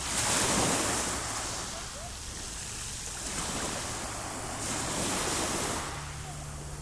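Sea waves breaking and washing onto the shore, surging loudest just at the start and again about five seconds in.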